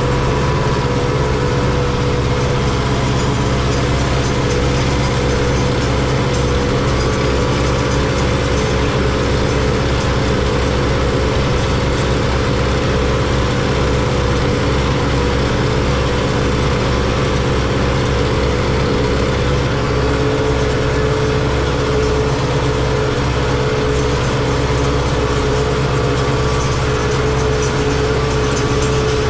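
Diesel engine running steadily at a constant speed, with no change in pitch or load.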